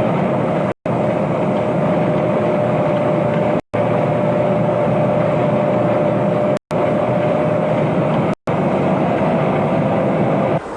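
Steady mechanical rumble with a constant mid-pitched hum, broken four times by a split-second dropout to silence.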